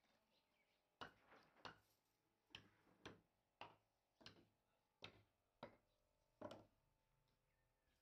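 Hammer knocking wooden blocks wedged under a log: about nine sharp knocks at uneven intervals over about five and a half seconds.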